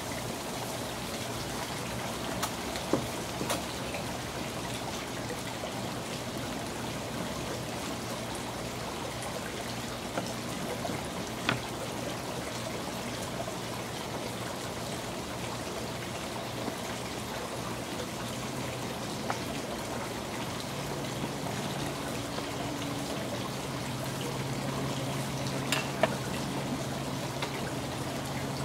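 A kitchen knife slicing through smoked pork ribs and knocking a few times against a plastic cutting board, over a steady rushing background noise. A low steady hum comes in about two-thirds of the way through.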